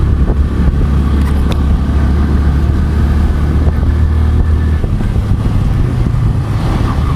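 Motorcycle engine running while riding, with a steady rushing noise; about five seconds in the low engine note changes and a somewhat higher one takes over.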